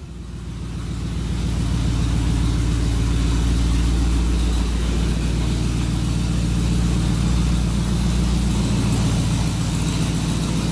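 A Ford F250 pickup's engine idling steadily.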